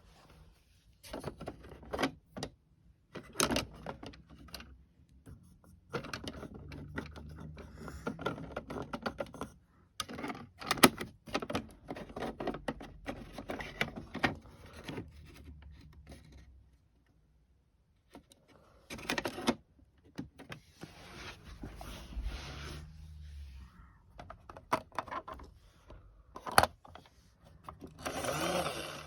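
Plastic toy washing machines being handled: irregular clicks, knocks and scrapes, with a small electric motor humming steadily at times.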